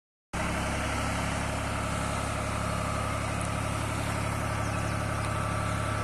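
Farm tractor's diesel engine running steadily under load, powering the hydraulic lift that tips a trolley loaded with soil.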